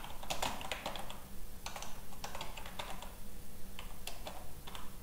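Computer keyboard being typed on: short irregular runs of key clicks, over a faint steady hum.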